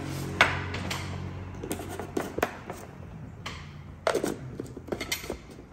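Scattered light clicks and knocks of a plate, a glass jar and tomato slices being handled on a glass tabletop, the sharpest about half a second in.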